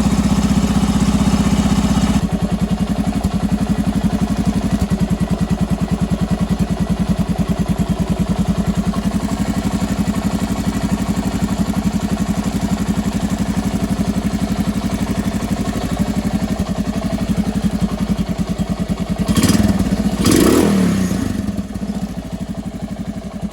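Honda TLR200's single-cylinder four-stroke engine idling with a steady, even putter. Near the end the throttle is blipped twice, then the engine drops back to a slow idle that runs a bit low.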